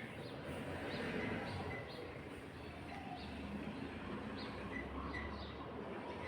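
Small birds chirping, short high chirps repeating every half second or so over a steady background hiss.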